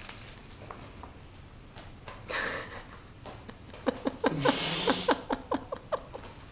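Small dog snorting and snuffling as it bites and tugs at the boots on its paws: a short puff about two and a half seconds in, then a quick run of short snorts near the end.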